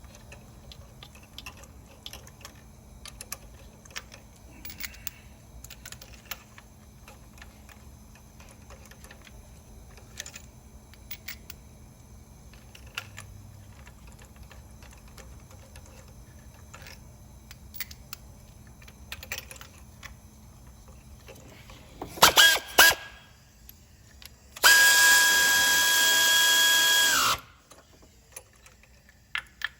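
Quiet clicks and small tool handling, then an electric power tool pulses twice and runs steadily for about two and a half seconds with a high whine before stopping abruptly, as used to run spark plugs into the cylinder head.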